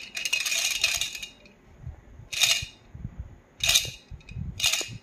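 Plastic baby rattle toy being shaken in bursts, a longer jingling shake at the start and then three short shakes about a second apart.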